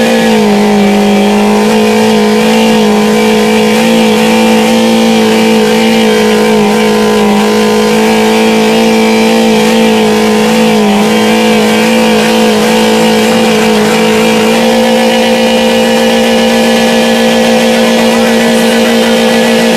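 Car engine held at high revs, its note staying at one steady high pitch after a brief dip at the start, as it is run flat out to blow it up.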